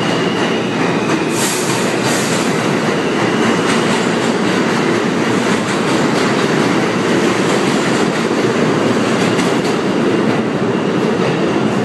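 New York City subway train running past along the station platform: loud, steady noise of steel wheels on the rails, with faint ticks from the wheels crossing rail joints.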